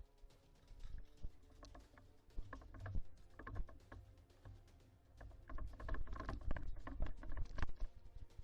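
Quiet background music with two stretches of quick, irregular clicking and rattling, about two and a half seconds in and again from about five and a half seconds in.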